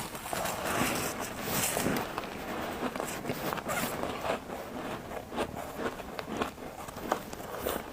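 A person biting and chewing crunchy white freezer frost close to the microphone: a dense, irregular run of crisp crackles and snaps.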